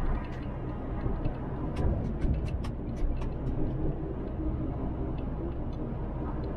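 Inside a MAN TGX truck cab at motorway speed: steady engine and road rumble. Between about two and three and a half seconds in, a run of sharp clicks and rattles sounds over it.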